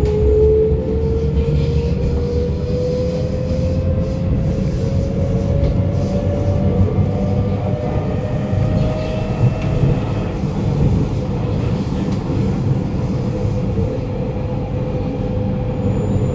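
Onboard sound of a Kawasaki Nippon Sharyo C751B metro train running, with a steady low rumble of wheels on rail. A motor whine rises slowly in pitch through the first half as the train picks up speed, then fades.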